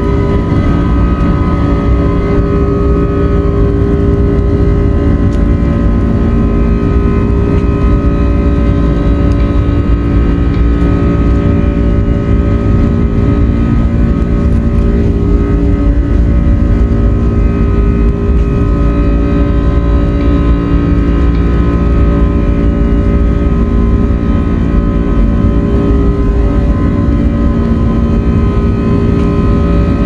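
A jetliner's turbofan engines at takeoff thrust, heard from inside the cabin during the takeoff roll: a loud, steady rumble with several steady whining tones over it.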